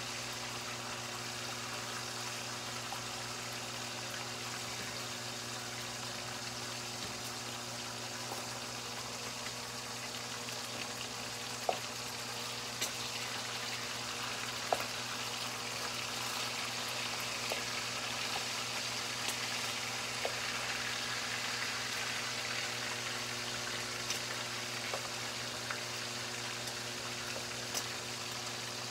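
Thick-cut bacon sizzling in a frying pan: a steady hiss with scattered small pops and crackles.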